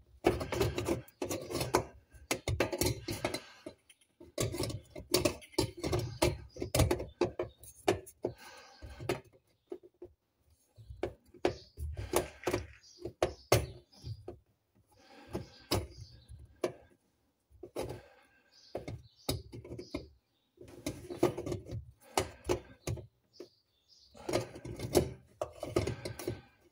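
Irregular clicks, knocks and scraping as a fuel pump assembly is worked by hand down into the opening of a Jaguar XK8's steel fuel tank. The sounds come in short clusters with brief pauses between them.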